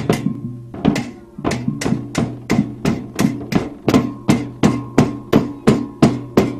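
Percussive music. A fast run of sharp strikes fades into a short lull about a second in, then a steady beat resumes at about three strikes a second, each strike with a low ringing tone.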